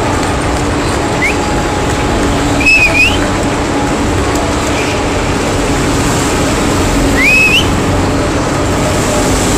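Spectators clapping as rental go-karts run past with their engines running at low speed. Two short rising whistles come through, about three seconds in and again at about seven seconds.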